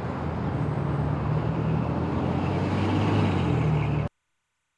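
Steady street traffic noise with a low engine hum, cutting off suddenly about four seconds in.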